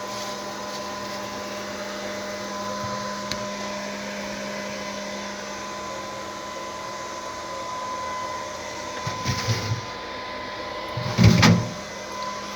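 A refrigerator run on solar power, humming steadily with a running whir. Two brief low rumbling knocks come near the end, the second one the loudest.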